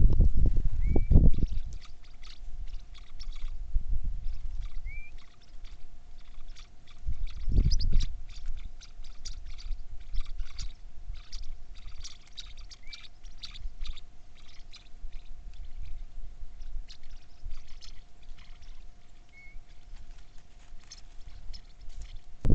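Small birds chirping: many short, high chirps, with a few brief rising whistled notes. Low rumbles come near the start and again about eight seconds in, over a faint steady hum.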